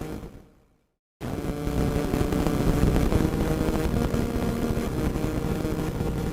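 Radio static hissing and crackling with a faint steady hum in it. It fades away within the first second, drops out for a moment, then cuts back in suddenly just over a second in.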